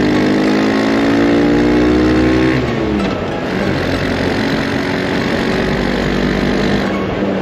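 Motorcycle engine accelerating, its pitch climbing steadily, then dropping sharply about two and a half seconds in as it shifts up a gear. It then runs on steadily under road and wind noise.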